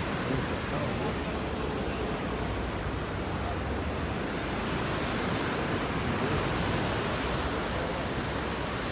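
Steady rush of sea surf and wind.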